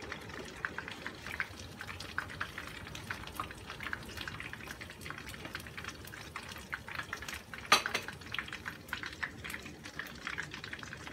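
Oil crackling and spitting faintly in a frying pan, a steady scatter of small pops, with one sharp clink of a plate or utensil a little past the middle.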